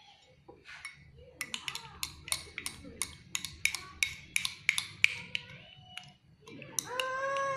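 A metal spoon clinking rapidly against a glass, about four strikes a second for several seconds, as the honey-and-lime remedy is stirred. Near the end a toddler starts to cry.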